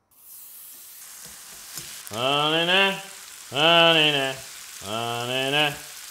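Bacon sizzling as it fries in a pan. From about two seconds in, three long, loud, wavering voice-like wails sound over it.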